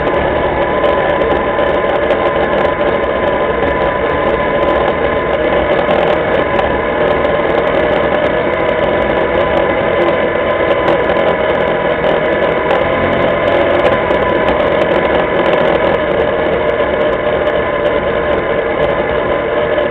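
Linhai ATV engine running steadily under way, picked up by a camera mounted on the quad itself.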